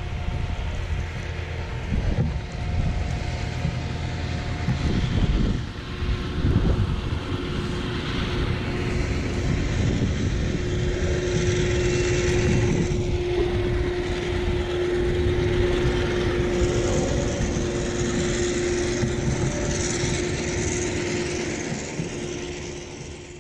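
Wind gusting and buffeting the microphone, over a steady mechanical drone that holds for most of the stretch.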